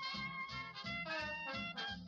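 Background music in a swing style, with a melody of held notes over a steady beat of about four pulses a second.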